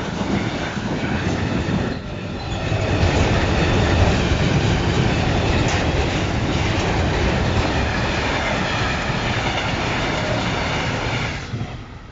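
Freight train wagons rolling past close by: a loud, steady rumble of steel wheels on the rails. It drops away suddenly near the end as the last wagon clears.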